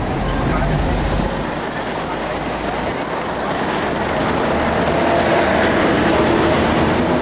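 Hong Kong double-decker electric tram running steadily along its street tracks, heard from on board, with wind on the microphone.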